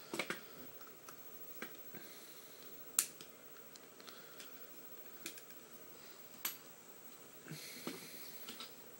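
Scattered plastic clicks and clacks from a Transformers Voyager-class Dropshot action figure as its parts are twisted and snapped into place by hand, with a brief rustle of handling near the end. The sharpest click comes about three seconds in.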